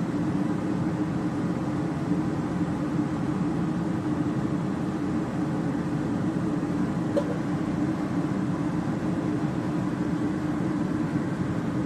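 Kitchen range hood extractor fan running with a steady motor hum and rush of air. A faint click comes about seven seconds in.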